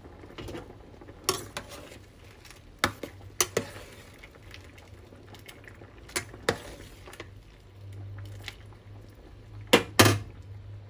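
Salted water with farfalle pasta at a hard rolling boil in a stainless steel pot, bubbling steadily. Several sharp knocks of the stirring spoon against the pot break in, and the two loudest come near the end.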